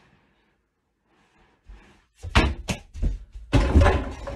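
A small basketball thumping: a few sharp thuds a little over two seconds in, then a louder bang against the mini hoop's backboard on the wardrobe door.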